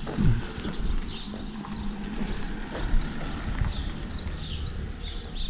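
Footsteps of a walker on a paved street, with small birds chirping repeatedly.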